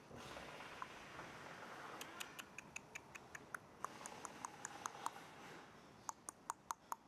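Runs of short, high-pitched squeaky ticks, about five a second, from about two seconds in to five seconds and again briefly near the end, over a faint hiss.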